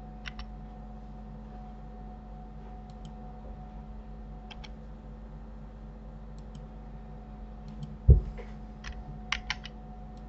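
Computer keyboard keys and mouse buttons clicking: scattered single clicks, then a quick run of clicks near the end. A dull thump about eight seconds in, over a steady low electrical hum.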